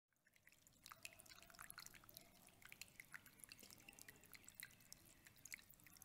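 Faint water dripping and trickling in a small tabletop water fountain: irregular drops, several a second, falling into a water-filled bowl.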